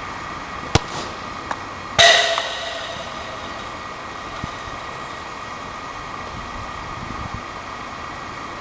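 A football is kicked with a sharp thud about a second in. About a second later the ball hits the metal goal frame or fence with a loud clang that rings briefly and fades. A steady hum runs underneath.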